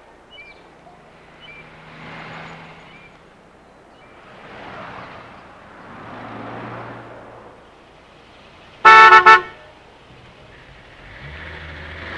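Car horn honking once, short and loud, about nine seconds in, between cars passing on the street with a soft rising and falling whoosh. Near the end a car engine starts humming steadily close by.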